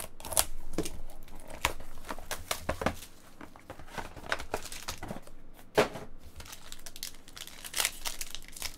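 A box cutter slits open a trading card box, then the box and its foil-wrapped pack are handled, making a run of crinkling, crackling and sharp clicks.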